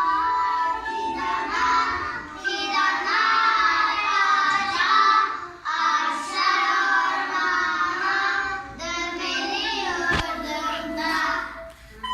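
Young children singing a song together, in unison, with a single sharp knock about ten seconds in.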